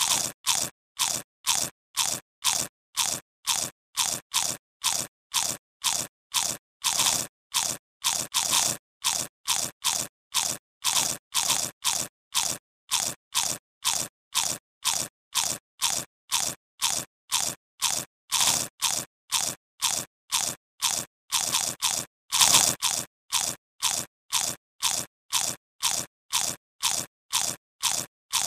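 A crunchy biting sound effect repeated in a steady, even rhythm of about two bites a second, each crunch short and sharp, with a few louder bites along the way.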